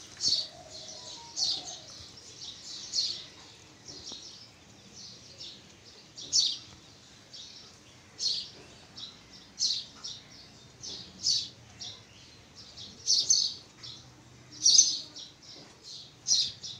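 A bird chirping repeatedly in short, high chirps, one every second or two.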